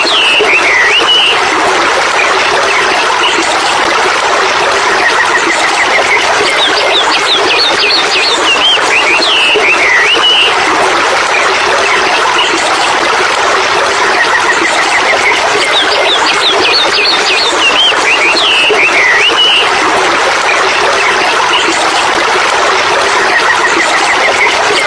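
Bird calls over a steady rushing noise. The same short run of chirps and rising whistles comes back about every nine and a half seconds, as in a looped nature track.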